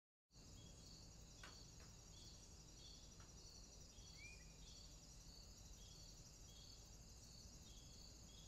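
Faint outdoor ambience: a steady low rumble with small high chirps repeating about twice a second, one short gliding call about four seconds in, and a few faint clicks.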